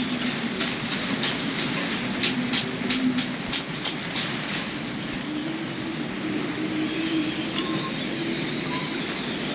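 Wind and light rain on a moored sailboat: a steady rush of noise with a low hum that drifts in pitch, and scattered ticks and taps during the first few seconds.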